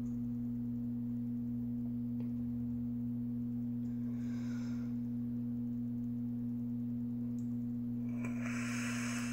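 Steady low hum throughout, with a soft hiss about four seconds in and a louder hiss near the end as a vape box mod is drawn on.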